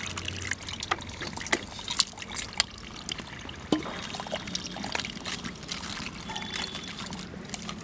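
Liquid trickling and pouring through a steel colander into a pot of curry, with sharp splats and clicks as hands press the fish pieces in the colander.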